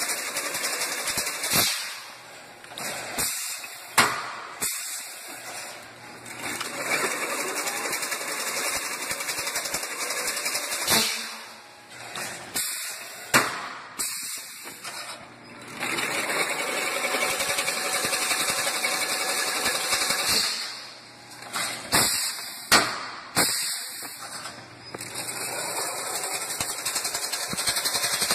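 Automatic chain-link fence weaving machine running: stretches of steady mechanical rushing noise alternate with quieter gaps, broken by sharp metal clacks and knocks, several near the middle and a cluster about two-thirds of the way through.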